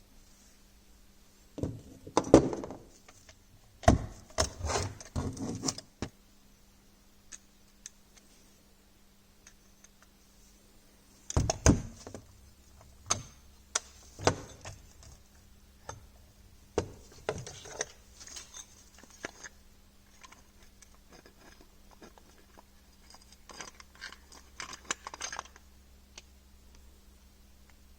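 Metal parts and tools of a marine starter motor clinking and knocking as they are handled and worked on, in several irregular clusters of sharp clicks and clanks, over a faint steady hum.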